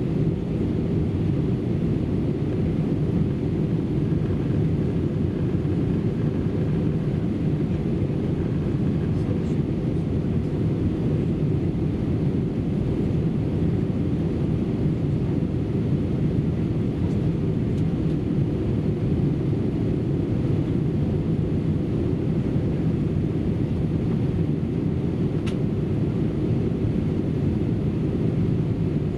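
Steady, low, even cabin noise of an Airbus A319 airliner during its descent to land: the engines and the air rushing past the fuselage, heard from inside the passenger cabin.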